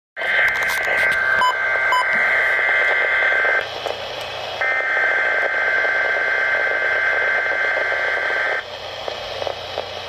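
Midland weather radio playing the digital header of a Weatheradio Canada EAS alert (SAME data bursts) through its speaker: two long stretches of buzzy, warbling data tones with a short gap between them. Two short beeps come about one and a half and two seconds in, and radio hiss follows the second burst.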